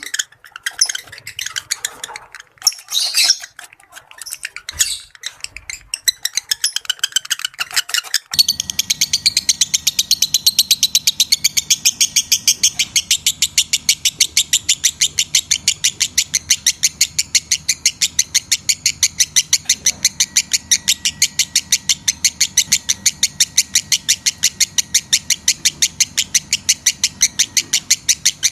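Lovebird calls: irregular high chirps, then about eight seconds in a sudden switch to a long, unbroken run of rapid, evenly spaced chirps, several a second, over a faint low hum. These are lovebird calls used to stimulate breeding condition in other lovebirds.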